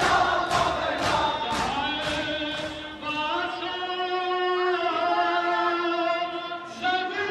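Men chanting a noha, a Muharram mourning chant, with sharp beats about twice a second for the first second and a half. The beats then stop, and from about three seconds in a voice holds long, drawn-out notes.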